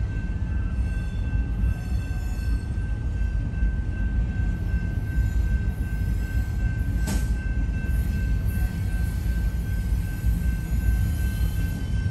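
Double-stack container freight cars rolling slowly past in reverse, a steady low rumble of wheels on rail with a thin, steady high wheel squeal over it. One sharp metallic clank comes about seven seconds in.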